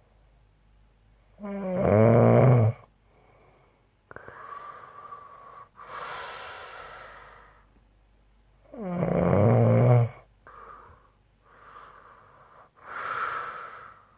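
A man snoring loudly in his sleep: two loud pitched snores, about a second and a half in and again about nine seconds in. Each is followed by long breathy breaths carrying a faint whistle.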